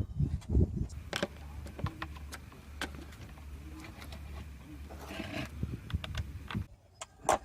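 Screws being loosened from an electric skateboard's main board cover with a small screwdriver: scattered clicks and knocks of tool and metal, over a steady low hum that runs from about a second in until near the end.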